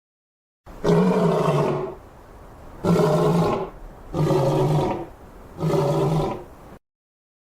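A lion roaring: four loud, deep roars of about a second each, with quieter sound between them. The sequence cuts off abruptly near the end.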